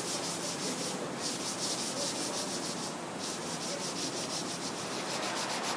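Hand block-sanding of a cured fiberglass panel: a sanding block rubbed back and forth in quick, even strokes, knocking down resin nibs where the fiberglass seeped through. The strokes break off briefly about a second in and again about three seconds in.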